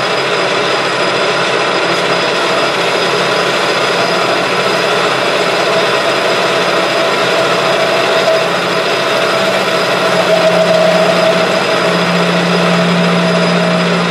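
Metal lathe running under power, taking a facing cut across the end of a spinning workpiece with a tool bit. A steady machine hum with a whine that grows stronger in the second half.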